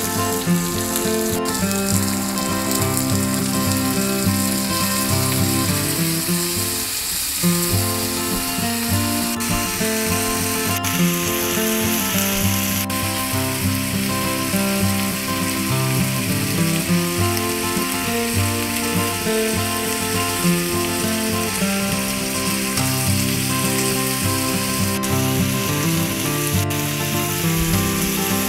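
Chopped onions and green bell peppers sizzling as they stir-fry in a pan, a steady hiss, under background music.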